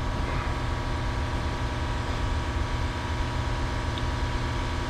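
Steady low machine hum with many even overtones, unchanging throughout, with a single light tick about four seconds in.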